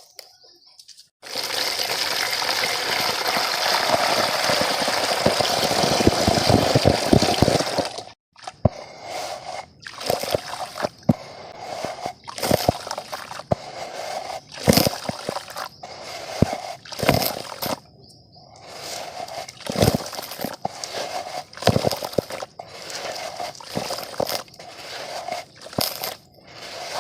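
Dry mud crumbling in water: a steady watery rush for about seven seconds near the start, then a run of separate crunches, cracks and splashes as lumps break and fall in.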